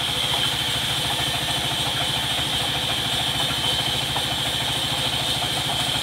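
Band sawmill running steadily: a low, even chugging from its drive with a steady high hiss from the band saw blade.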